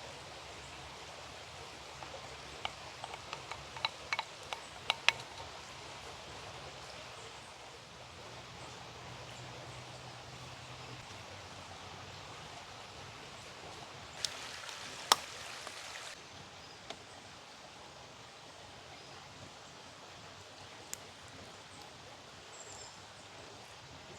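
Quiet outdoor ambience: a steady soft hiss with scattered light clicks and ticks, a short rustling burst with one sharper click about two-thirds of the way through, and a lone click later.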